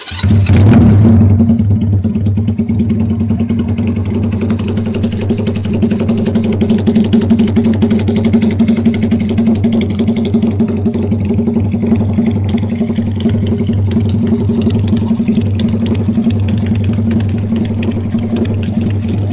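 Benelli Patagonian Eagle 250's parallel-twin engine, breathing through a free-flow exhaust, starting with a brief loud flare and then idling steadily.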